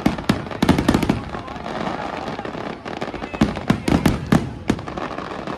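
Fireworks going off in rapid volleys of sharp cracks and bangs. There is a dense cluster at the start and another about three and a half seconds in.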